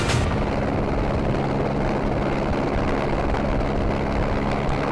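Helicopter running steadily, heard from on board: an even drone with a low hum underneath.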